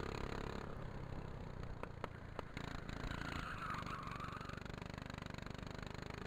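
Go-kart engine running, heard from onboard the kart; its note drops under a second in as the throttle eases, with a few short clicks about two seconds in.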